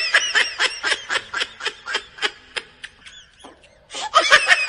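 A person laughing in a quick run of short high-pitched bursts, about five a second. The laughter stops for about a second, then breaks out again near the end.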